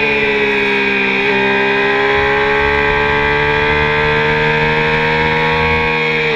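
Triumph sport motorcycle engine running hard at high revs, heard from the rider's seat under wind rush. Its pitch sags slightly, breaks briefly about a second in, then climbs slowly.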